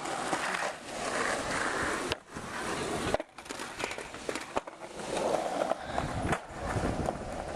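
Skateboard wheels rolling over pavement: a steady rough rolling noise with small clicks from cracks and joints, breaking off briefly about two and three seconds in.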